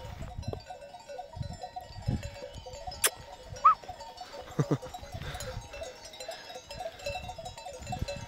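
Many small bells hung on a flock of sheep, jingling and clanking steadily as the animals move and graze. A few soft thumps come through, and a couple of brief, sharper sounds stand out near the middle.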